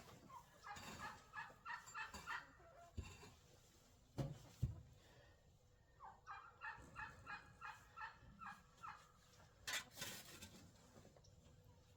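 Chickens giving two runs of short, rapid clucking calls, with a few sharp knocks in between.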